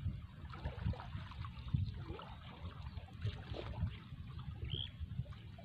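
Water trickling and sloshing as a scoop net is worked and lifted through shallow pond water, under irregular low rumbling.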